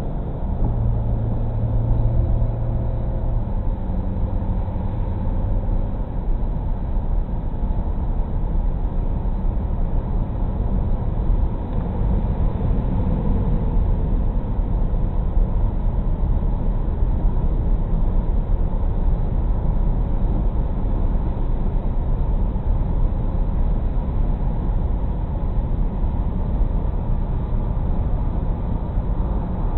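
Steady road noise inside a car's cabin at highway speed: tyres on wet pavement and the engine running, with a low hum in the first few seconds.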